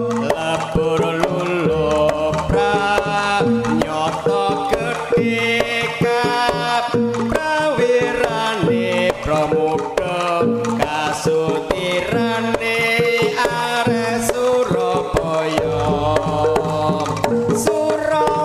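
Live Javanese jaranan music played loud through a sound system: hand drums (kendang) beating under a pitched melody, with deep sustained low notes about two seconds in and again near the end.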